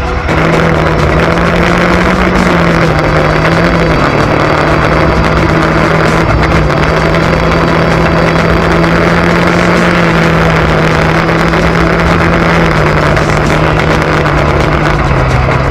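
Vehicle engine running steadily at a near-constant speed, its pitch wandering slightly and dropping lower near the end.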